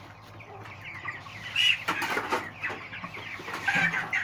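Young white chickens cheeping and clucking in many short chirps, with grain rustling as a hand stirs maize and guinea corn in a sack.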